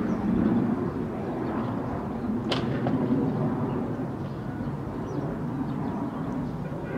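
Steady low outdoor background rumble over the lake, with one brief sharp click about two and a half seconds in.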